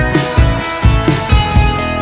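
Background rock music with a steady drum beat, about two beats a second, over sustained pitched instrument lines.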